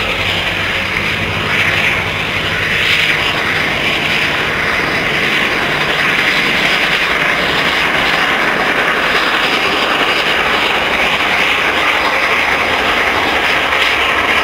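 Reading & Northern 425, a 4-6-2 steam locomotive, working a train, heard from a distance as a steady, even rush of sound rather than separate chuffs.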